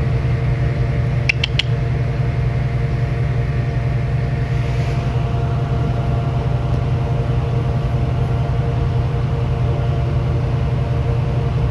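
A steady low mechanical hum, with two light clicks about a second and a half in.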